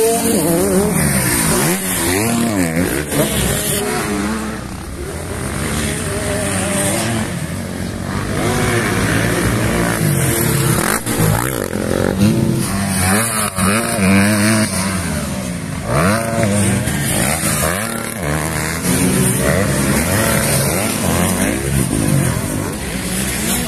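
Motocross dirt bike engines revving hard, their pitch rising and falling over and over as the bikes accelerate and back off around the track, with more than one engine heard at once at times.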